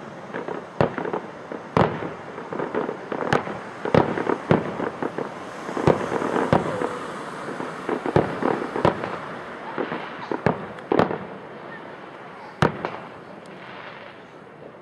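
Fireworks going off: aerial shells burst in a quick, irregular run of sharp bangs, with a stretch of dense crackling in the middle. The bangs thin out toward the end.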